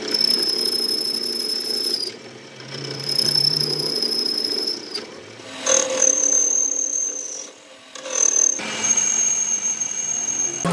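Metalworking power tools running with a steady high-pitched whine, heard in several short stretches that cut off abruptly, the pitch a little higher in the last two.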